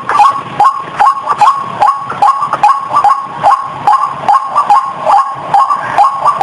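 White-breasted waterhen calling, one short call repeated over and over at about two to three a second, in a lure-call recording used to draw waterhens in.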